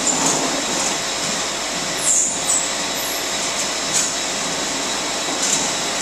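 Winery grape-processing machinery running steadily, a continuous mechanical noise, with a few brief high swishes as white grape bunches are raked out of a plastic crate into a stainless-steel hopper.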